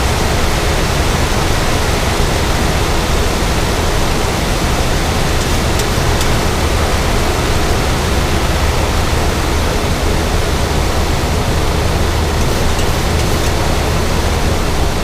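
Steady rushing noise inside a Boeing 737 cockpit in flight, from airflow and the engines, with a deep rumble underneath and no change throughout.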